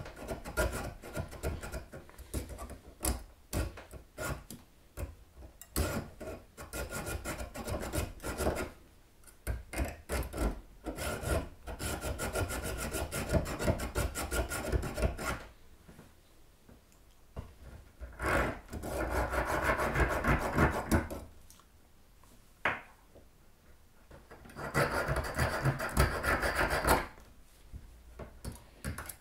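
Hacksaw cutting through a metal spindle: rasping back-and-forth strokes in runs, with a couple of short pauses in the second half.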